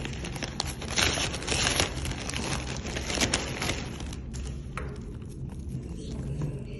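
Plastic courier mailer bag being cut and torn open with a pocket knife, then crinkling as a tape-wrapped box is pulled out of it. The crackling rustle is loudest in the first three seconds or so and dies down after.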